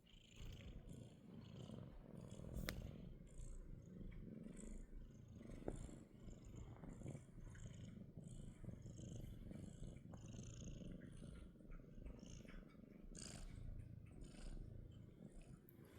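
Domestic cat purring, a low continuous rumble that swells and eases with its breaths, with a couple of faint clicks.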